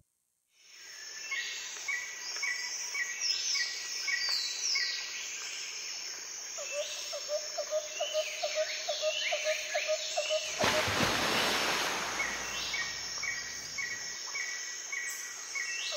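Outdoor roadside ambience with small birds chirping and calling over and over, short notes repeated a few times a second with quick sweeping calls above them. In the second half a rushing noise swells up for about four seconds and drops away.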